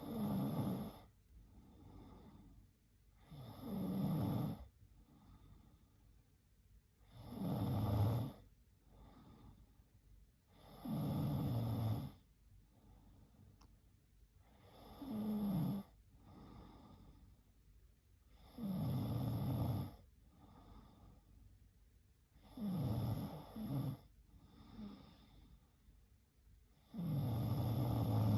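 A young woman snoring in her sleep: a loud snore about every four seconds, each lasting about a second, with softer breath sounds between. One snore partway through breaks into two short ones.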